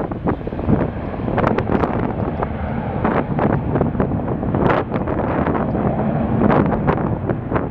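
Wind buffeting the microphone in irregular gusts, a loud rumbling noise throughout.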